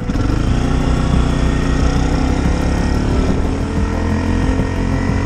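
Cruiser motorcycle engine running under way as the bike accelerates down the street. The note climbs a little at first, then holds steady.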